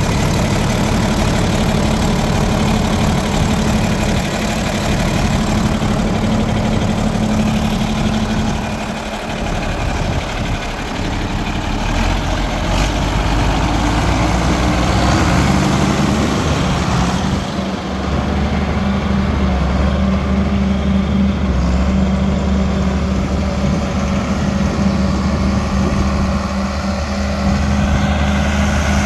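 John Deere 4440's 466-cubic-inch six-cylinder turbo diesel running steadily, heard close to the engine at first. About two-thirds of the way in the engine note changes, and it runs on as the tractor is driven off.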